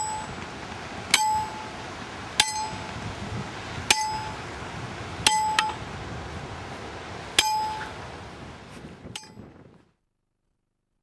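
A metal ground stake being driven in with a swung metal tool: each blow is a sharp metal clang with a brief ringing tone, about six blows one to two seconds apart, the last one fainter. Then the sound cuts off.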